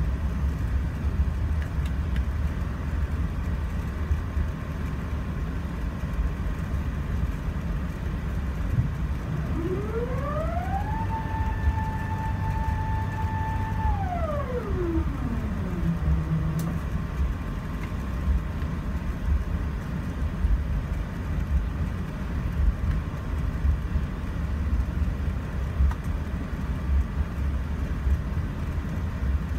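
Steady low rumble in the cabin of an Airbus A380 taxiing, its engines and wheels heard through the fuselage. Near the middle a whine from the aircraft rises, holds steady for about three seconds, then falls away.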